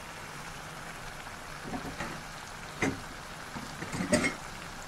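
Tomato sauce simmering and sizzling in a nonstick frying pan as a steady crackling hiss, with a few short knocks about three and four seconds in.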